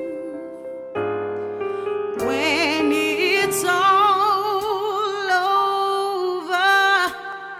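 Music: a slow song with a singing voice holding long notes with vibrato over sustained accompaniment chords, the voice entering about two seconds in.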